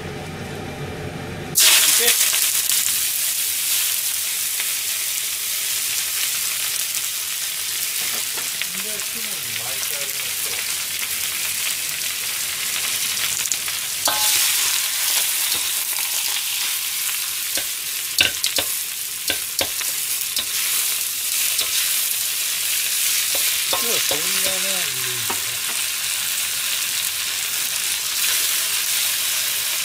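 Food goes into a frying pan of hot oil about a second and a half in and sets off a loud, steady sizzle of frying. A few knocks of a utensil stirring the pan come through it.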